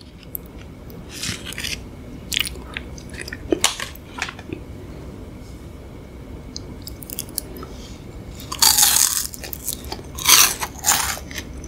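Close-miked ASMR eating of a Beng-Beng chocolate wafer bar with a crispy rice-coated shell: scattered crisp crackles, then a loud crunching bite a little past the middle, followed by more crunches of chewing.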